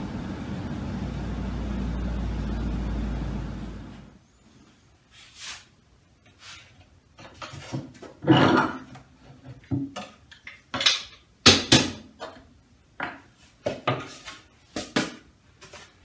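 A steady low machine hum that cuts off about four seconds in, followed by a string of light wooden knocks and clacks as guitar top and brace pieces are handled and set down on a workbench.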